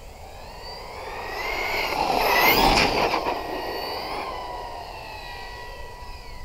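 JLB J3 Speed RC car's brushless electric motor whining at high speed with tyre noise, growing louder as it approaches, passing close about two and a half to three seconds in, then dropping in pitch and fading as it speeds away.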